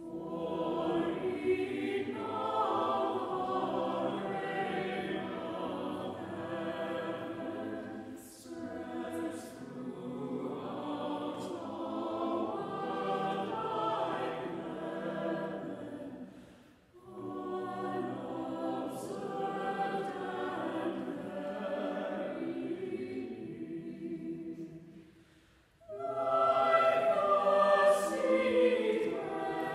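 Mixed choir of men and women singing a cappella, phrase by phrase, with short breaks between phrases. There is a pause of about two seconds near the end, then the choir comes back in louder.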